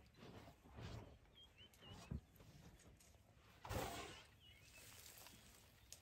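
African elephant dust-bathing: one short, loud whooshing blast about four seconds in as she blows and flings sand over her back with her trunk. A few small bird chirps come before and after it.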